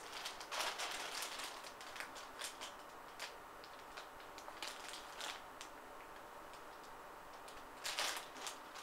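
Clear plastic accessory bag crinkling and rustling as it is handled, a run of irregular short crackles that thins out in the middle and picks up again near the end.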